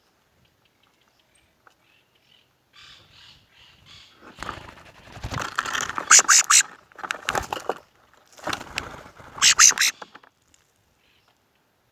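Birds calling in three loud bursts of harsh, noisy calls, with quick sharp chirps inside the loudest ones about six and nine and a half seconds in.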